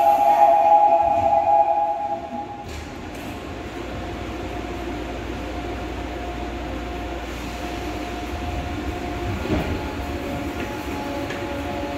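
A loud two-tone warning signal sounds as the doors close and stops about two seconds in. A Seoul Line 3 electric subway train then pulls away, its traction motors running with a low rumble and steady tones that shift in pitch as it gathers speed.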